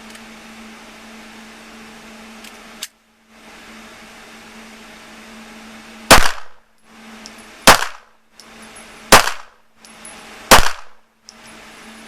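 Four pistol shots spaced about a second and a half apart, each followed by a short ringing echo. They come as firing resumes after a cleared jam. A faint steady hum runs underneath.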